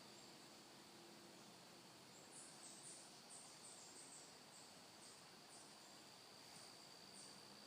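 Near silence: faint outdoor ambience with a steady high insect drone, joined about two seconds in by short, high chirps repeating irregularly several times a second.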